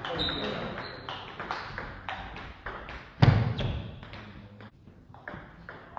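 Table tennis rally: the celluloid ball clicking off bats and table in quick succession. A single loud, sudden hit about three seconds in ends the rally, followed by a few fainter clicks.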